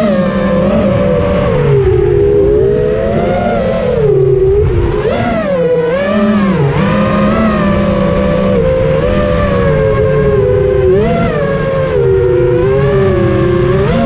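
FPV quadcopter's motors and propellers whining, the pitch rising and falling continually as the throttle changes, with wind rushing over the drone camera's microphone.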